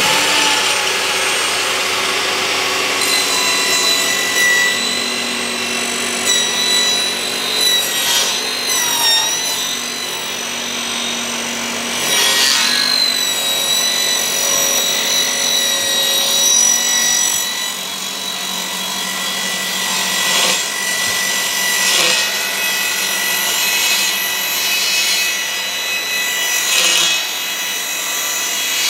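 Bosch GTS table saw running as its blade is raised up through a new zero-clearance insert, cutting the blade slot in it. A steady high whine, the pitch dipping briefly a couple of times as the blade bites into the insert.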